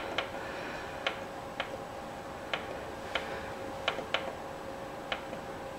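Control button on an Electrolux oven pressed repeatedly to raise the cook time: about eight short clicks, irregularly spaced, over a faint steady hum.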